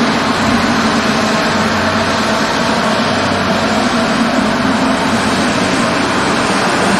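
Summit Air twin-engine turboprop plane's engines and propellers running steadily with a loud, even drone.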